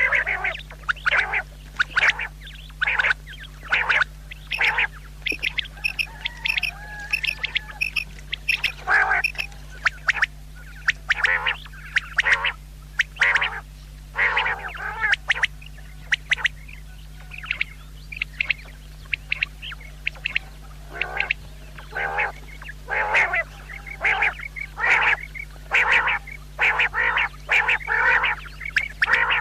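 Female common quail calling: short raspy notes repeated about once or twice a second, in irregular runs, over a steady low hum.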